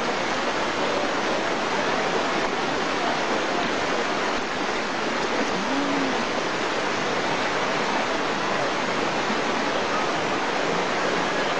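Fast-flowing floodwater rushing steadily, a loud even sound of water.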